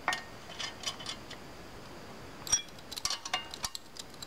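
Light metal clicks and clinks of a nut, bolt and wrench being handled on a steel cultivator frame as a nut is threaded onto a pivot bolt, with a quick run of clinks from about two and a half seconds in.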